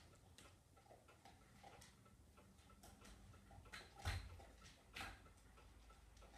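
Faint, scattered clicks and taps on a tile kitchen floor from two dogs and a man on crutches moving about, with a louder knock about four seconds in and another about a second later.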